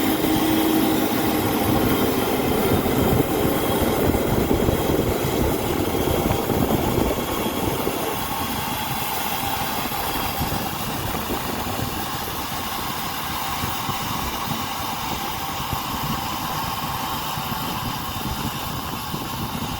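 Farm tractor engine running as it works the field, louder for the first eight seconds or so, then a little quieter and steady.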